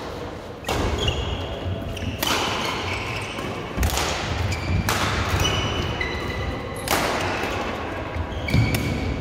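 Badminton rally: rackets striking the shuttlecock with sharp cracks every second or so, with short high shoe squeaks on the court mat between hits, echoing in a large sports hall.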